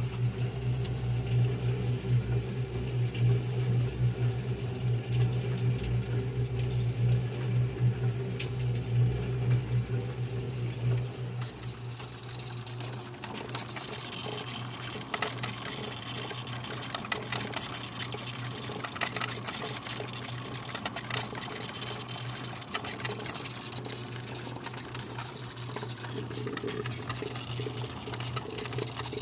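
Homemade light clay straw tumbler running: an electric motor drives a blue plastic barrel through V-belts and pulleys, and the barrel turns on rubber caster wheels. It makes a steady low hum under a running clatter. The hum is strongest for the first eleven seconds or so, then drops lower.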